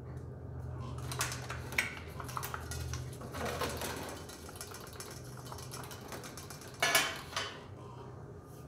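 Metal cutlery clinking and scraping on metal mess plates, in scattered irregular clicks with a louder clatter about seven seconds in, over a faint steady low hum.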